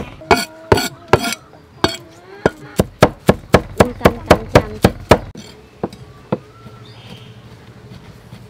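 Cleaver chopping garlic on a wooden chopping block: a fast, steady run of knocks, about four a second, that stops about five seconds in, followed by a couple of single knocks.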